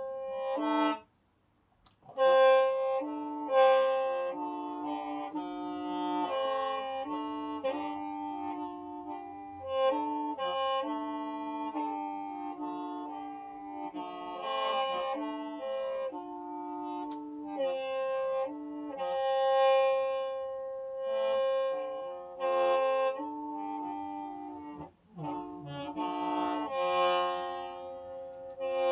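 Hmong qeej, a free-reed bamboo mouth organ, playing several reed tones at once, with changing notes over held lower tones. It breaks off for about a second early on and dips briefly near the end.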